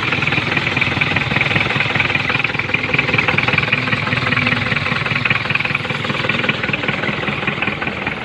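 Hindustan Ambassador engine running at a steady idle just after starting.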